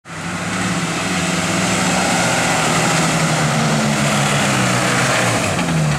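Suzuki off-road 4x4's engine running hard at high revs as it climbs a steep dirt slope under load, its pitch shifting up about halfway through and the revs falling away right at the end.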